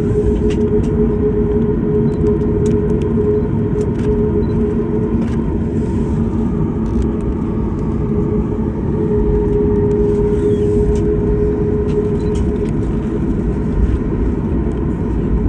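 Cabin noise inside a Boeing 737 MAX 9 taxiing, its CFM LEAP-1B engines running at taxi power: a steady low rumble with a steady hum that fades for a few seconds in the middle and then returns. Faint scattered clicks sound over it.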